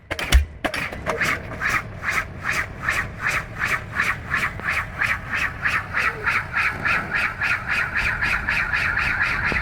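Diesel pile hammer rig, its last heavy blows giving way to an even run of lighter metallic strokes about three a second, which blur into a steady machine noise near the end.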